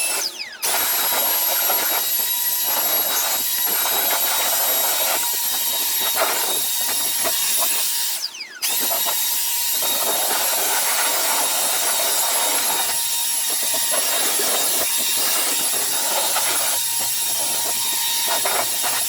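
Milwaukee M18 cordless leaf blower running steadily with a high motor whine over the rush of air, blowing grass clippings off a mower. It spools up at the start, cuts out for a moment about eight seconds in as the trigger is released, then spins back up.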